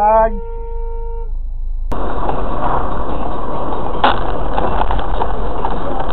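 A long steady tone cuts off about a second in. From about two seconds in comes the steady engine and road noise of a moving car, heard from inside the cabin through a dashcam's microphone, with one brief knock about four seconds in.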